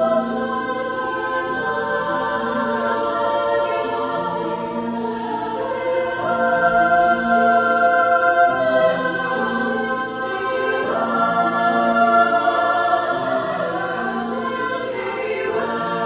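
Women's choir singing held chords in several parts, the notes moving to a new chord every second or two.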